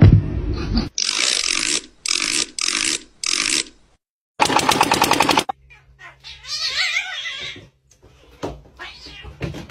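Kitten hissing in four short bursts, then a loud burst of rapid rattling, then a cat meowing with a wavering call.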